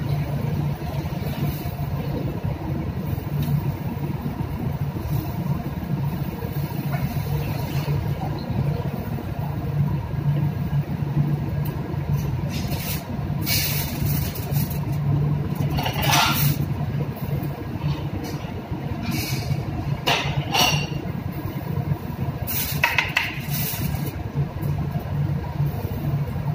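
Steady low machinery hum aboard a ship at sea, with aluminium foil crinkling in short bursts around the middle and again near the end.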